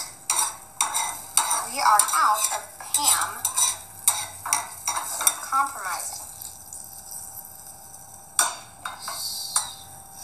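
Metal tongs scraping, stirring and tapping in a frying pan as an egg cooks, over the sizzle of the egg frying. The scraping stops about six seconds in, leaving mostly the sizzle, with a few more clicks near the end.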